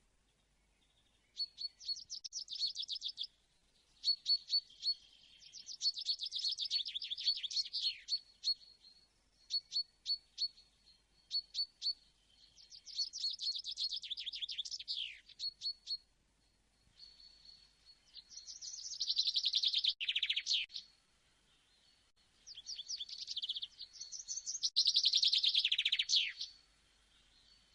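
Songbirds chirping in phrases of rapid, high, repeated notes, several phrases ending in a falling sweep, with short pauses between them.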